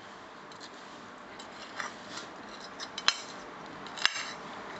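A metal spoon clinking and scraping against a plate as it cuts into an oats pancake: a few light taps, then two sharper clinks about three and four seconds in.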